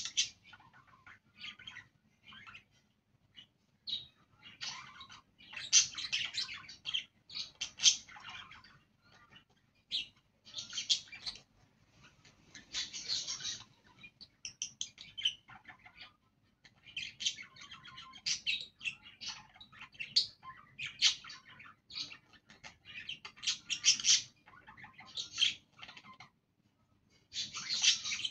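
Budgerigars chirping and chattering in quick high bursts, with pauses of a second or two between them.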